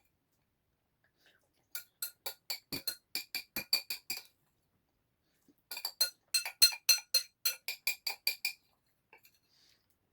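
A utensil clinking against a ringing ceramic or glass dish while eating, played at double speed: two runs of quick strikes, about four a second, with a short pause between them.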